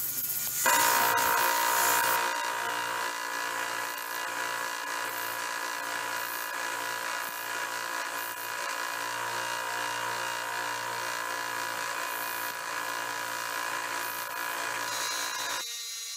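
Belt sander running with a spring-steel knife blank pressed against the belt to grind its profile, a steady whine, after a brief hiss of an angle grinder at the very start. The grinding changes abruptly near the end to a fainter high whine.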